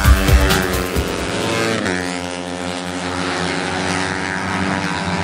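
Small racing motorcycles passing at full speed, loudest at the start, then their engine note carries on steadily as they pull away down the straight.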